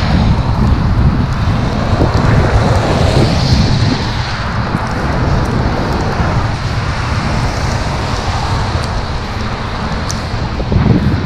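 Wind buffeting the microphone: a loud, uneven rumbling rush of noise.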